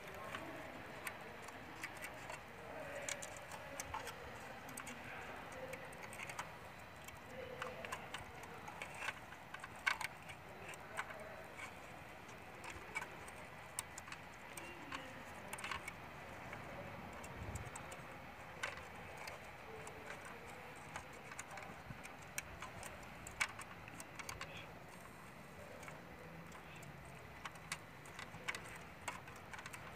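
Faint, irregular light clicks and taps of small tools and parts being handled during hand work on a fiber cable and terminal box, with one louder click about ten seconds in.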